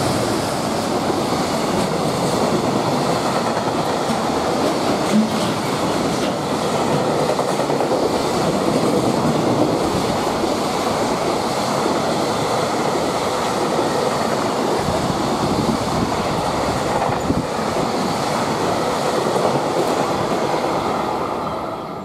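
A JR Freight container train passing behind an EF210 electric locomotive: the container wagons roll by with a steady rumble of steel wheels on rail and a clickety-clack over the rail joints, fading out at the very end.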